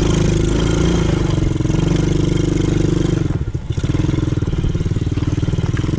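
Quad bike engine running steadily. About three and a half seconds in it briefly drops away, then picks up again.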